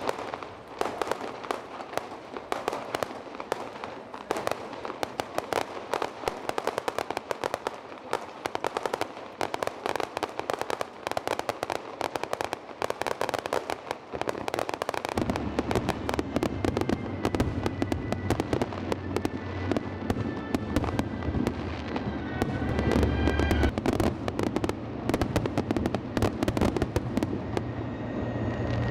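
Fireworks going off: dense, continuous crackling from many small bursts. About halfway through, deeper booms join in and the whole display grows louder.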